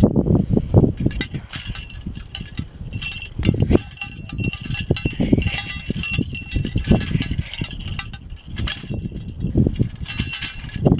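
Uneven low gusts, as of wind buffeting the microphone, with light metallic chiming and jingling at a steady high pitch running under them.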